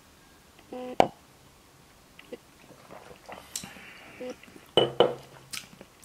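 Small tabletop clicks and taps in a quiet room as wine is being tasted. The loudest is a single sharp tap about a second in. A short, low, hummed sound comes near five seconds.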